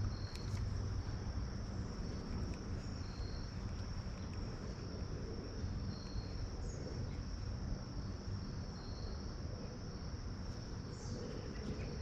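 Crickets chirping in a steady, high, continuous chorus. A short, slightly lower note repeats about every three seconds, and a low rumble runs underneath.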